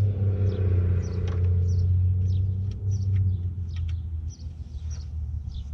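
A motor vehicle's engine rumbles past, loud at the start and fading away after about four seconds. Birds chirp throughout.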